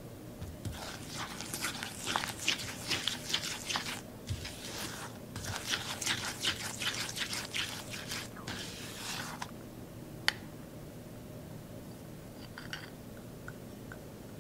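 Silicone spatula stirring and scraping a soft butter, powdered-sugar and coffee paste in a glass bowl, in two quick bouts of short strokes with a brief pause between. About ten seconds in there is one sharp tap, then only a few faint ticks.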